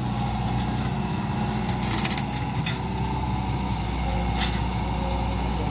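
Hitachi Zaxis 110 excavator's diesel engine running under load while its hydraulic mulcher head grinds chipped oil palm stumps into the ground. There is a steady whine over the engine hum and occasional sharp knocks as wood and soil are struck.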